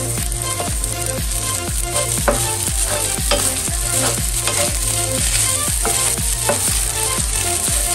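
Cooked rice sizzling as it fries in butter in a pan, stirred and scraped with a wooden spatula. Background music with a steady beat of about two thumps a second runs underneath.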